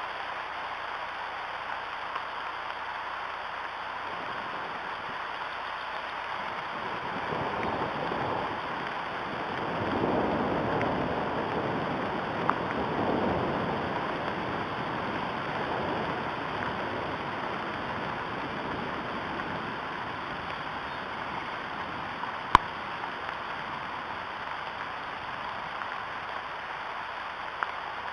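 Steady rain falling on the nest and the surrounding trees, swelling heavier for several seconds in the middle. A few sharp drip-like ticks stand out, the loudest about two-thirds of the way through.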